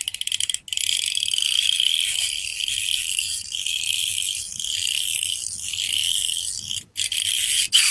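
Ratchet clicking of a metal fidget spinner, its spring-loaded 3 mm balls set in adjacent holes snapping against the spinning rotor. It starts as rapid separate clicks, stops briefly, then turns into a dense, continuous high rattle for about six seconds before breaking into a few short bursts near the end.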